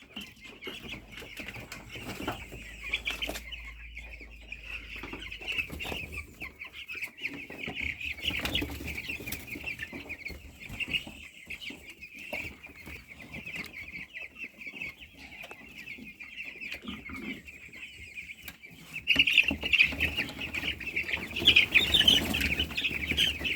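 A flock of young broiler chicks peeping continuously, getting louder and busier about three-quarters of the way through.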